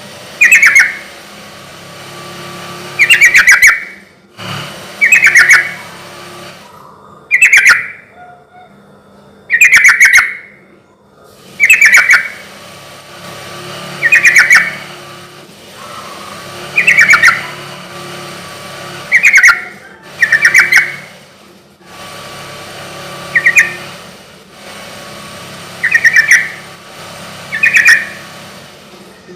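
Sooty-headed bulbul (trucukan) singing: short, loud, bubbly phrases repeated about every two seconds.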